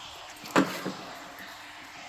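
Door lock parts being handled: one sharp clack about half a second in, then a lighter knock.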